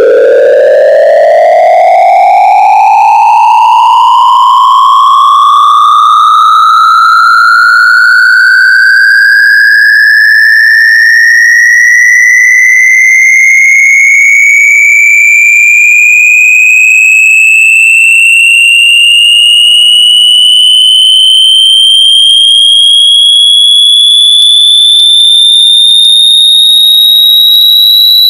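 Loud electronic test tone with a buzzy edge, sweeping continuously upward in pitch from a mid hum to a high whine, rising quickly at first and then more slowly. Faint extra tones criss-cross above it, gliding down and up.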